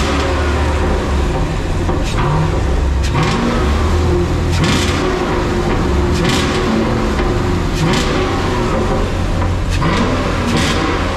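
Car engines running at a car meet, loud throughout, with revs rising and falling in short pulls several times.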